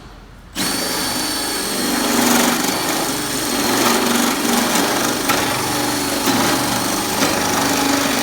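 Electric drill starting about half a second in and running steadily under load, cutting a 1 1/4-inch hole through the underside of a car hood.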